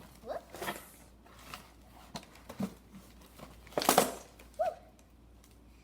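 Doll packaging being handled and cut with scissors: scattered small clicks, snips and crinkles, with one louder rustling crunch about four seconds in.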